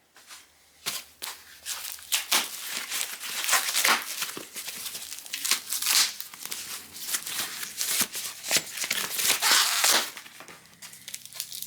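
Plastic packaging being handled, crinkling and tearing in irregular bursts, as a bike part is unwrapped.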